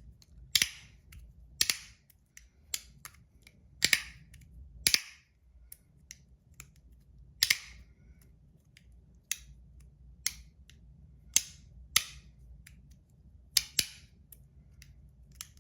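Handheld fidget toy being clicked and snapped over and over: sharp, irregular clicks about once a second, some louder ones with a short ring.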